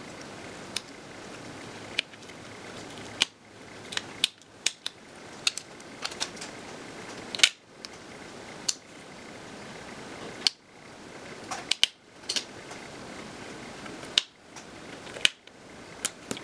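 Irregular light clicks and taps of fingertips and nails handling small cut pieces of a craft transfer sheet on a hard tabletop, roughly one a second, over a steady faint hiss.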